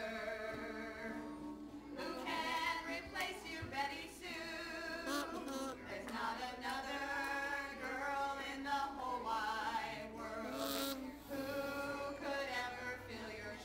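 Two women and a man singing a song together, with an acoustic guitar accompanying them.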